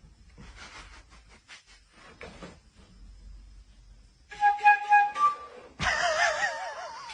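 Flute-like whistling: a few short steady whistled notes about four seconds in, then a wavering, warbling whistle near the end, over faint rustling.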